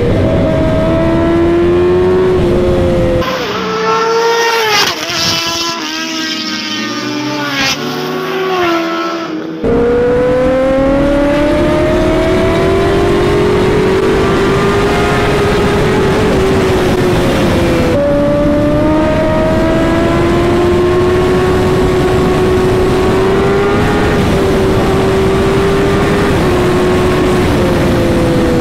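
Kawasaki Ninja ZX-10R's inline-four engine pulling hard at high speed, its pitch climbing through the gears with upshifts about ten and eighteen seconds in, over a steady rush of wind. From about three to ten seconds in, a thinner, quieter sound takes over, with engine pitches sweeping up and down.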